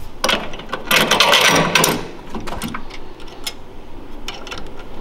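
Metal hardware clicking and rattling as a small bracket and its bolts are worked onto the engine with an Allen key: a dense rattle for the first couple of seconds, then scattered clicks.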